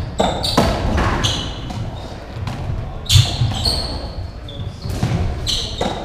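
Racketball rally: repeated sharp smacks of the rubber ball off rackets and the court walls, the loudest about three seconds in, mixed with short high squeaks of players' shoes on the wooden court floor.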